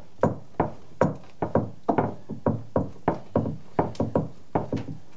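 Bread dough being kneaded by hand on a wooden board: quick, uneven thumps at about four a second as the dough is pushed and slapped down.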